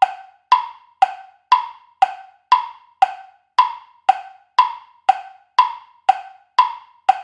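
Quiz countdown-timer sound effect: a clock-like tick-tock, about two strokes a second, alternating between a higher and a lower tick. It stops as the time runs out near the end.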